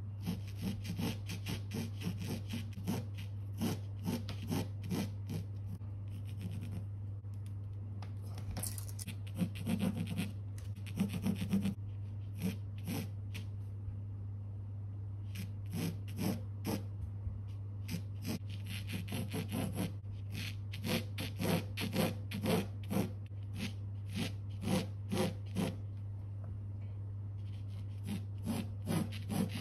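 Pencil scratching on canvas as an outline is sketched, in quick runs of short strokes with brief pauses between them. A steady low hum sits beneath.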